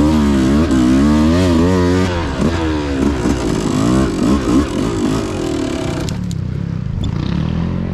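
Beta enduro dirt bike engine being ridden on a trail, revving up and down repeatedly with the throttle. It eases off to a lower, steadier note about six seconds in. A couple of light clicks come near the end.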